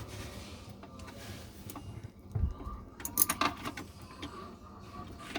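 Handling noise from working a garbage disposal's mounting screws: sharp metallic clicks and scraping, with a dull thump about two and a half seconds in.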